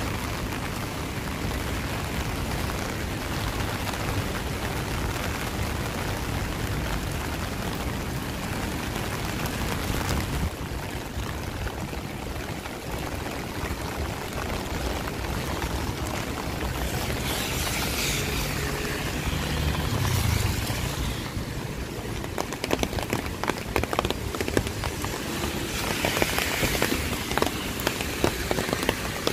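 Steady rain falling on a city street, with a vehicle's tyres hissing by on the wet road around the middle and again near the end. In the last third, many sharp drip hits sound close by.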